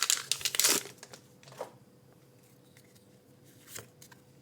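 Foil booster pack wrapper crinkling as it is torn open, dying away within the first second, then only a couple of soft taps.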